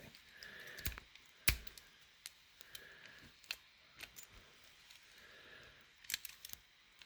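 Scattered light clicks and taps of a Fichet safe lock and its key being handled, with one sharper click about a second and a half in.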